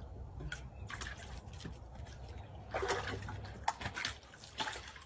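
A dog lapping water from a plastic storage tub, then water sloshing and splashing in the tub as the dog climbs into it, loudest about three seconds in.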